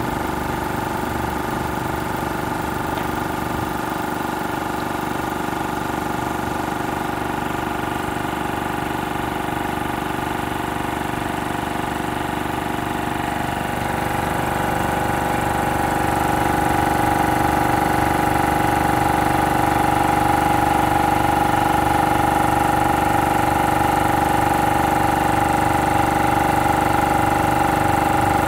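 MAX AK-7000A II portable air compressor running steadily. About halfway through it gets louder and a steady hum comes up more strongly.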